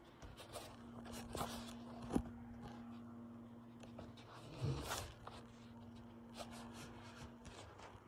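Hoover H-Wash 300 Plus washing machine winding down at the end of an empty spin: a faint steady hum that stops about four seconds in and comes back, with scattered light clicks and one dull knock about four and a half seconds in.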